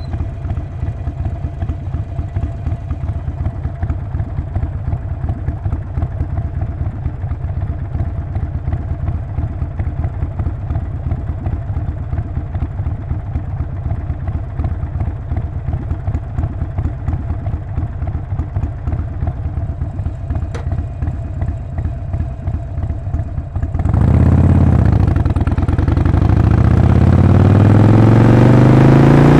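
Harley-Davidson Sportster Forty-Eight's 1200 cc air-cooled V-twin idling with an even, pulsing beat. Near the end it pulls away: the engine gets louder and its pitch climbs, dips at a gear change, then climbs again.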